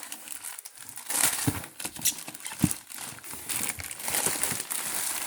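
Packaging crinkling and rustling as groceries are handled in a shipping box, with a few short light knocks.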